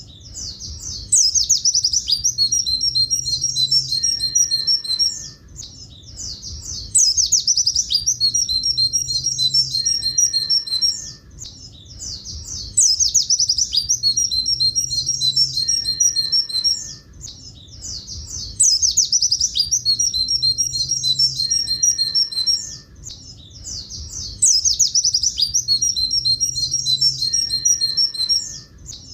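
Oriental white-eye (pleci buxtoni) singing a rapid, high twittering 'tulit tulit' phrase. The same phrase of about four seconds repeats about every six seconds, with short pauses between.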